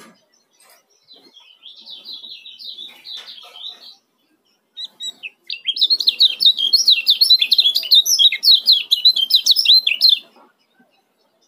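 Caged lemon-bellied white-eye (kecial kuning) singing: a soft twittering warble first, then, after a brief pause, a loud, rapid, tightly packed chattering song ('ciak speed rapat') lasting about four and a half seconds.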